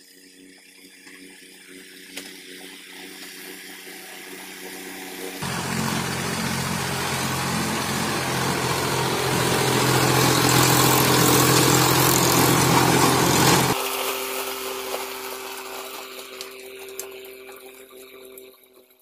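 Mahindra Yuvo tractor's diesel engine working under load while pulling a rotavator through dry soil, the engine note joined by the hiss and clatter of the tilling. It grows louder as the tractor approaches, is loudest in the middle, and fades as it moves away.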